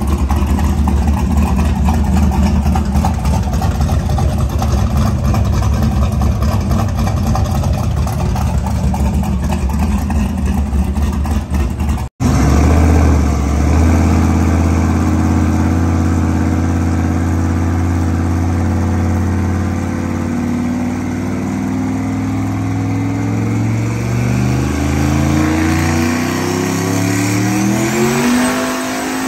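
Turbocharged engine of a Chevrolet Silverado pickup running under load on a chassis dyno during a tuning pull. A steady run is followed by a cut about twelve seconds in; the engine note then holds for a while and climbs steadily over the last five seconds as it revs up, with a high rising whine near the end.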